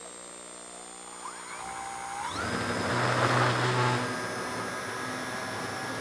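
RC model airplane's motor and propeller throttling up for takeoff: a whine that starts rising in pitch about a second in, jumps higher a little after two seconds and then holds steady, with a rush of air noise that is loudest around three to four seconds in.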